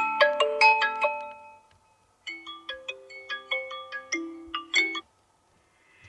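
Vivo Y33s phone ringtones: one tune of short melodic notes ends about a second and a half in. After a brief gap a second, quieter ringtone melody plays for about three seconds and stops.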